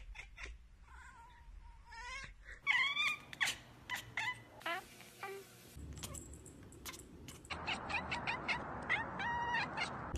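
Domestic cats meowing and yowling: a string of short cries that bend up and down in pitch, from several different cats one after another.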